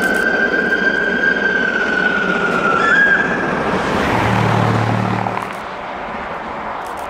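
Steam locomotive whistle sounding one long blast of about three seconds, its pitch stepping up just before it cuts off, over the steady rush of the approaching locomotive. A brief low hum follows about a second later.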